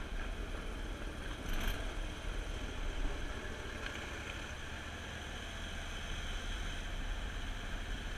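Copperhead surface-drive mud motor running steadily, pushing a jon boat through marsh vegetation, with a brief swish about a second and a half in.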